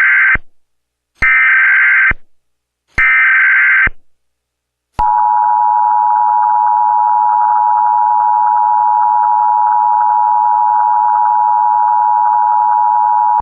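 Emergency Alert System broadcast tones: three one-second bursts of SAME header data, a rapid warbling between two high tones, then the EAS two-tone attention signal, held steady for about eight seconds and cutting off at the end.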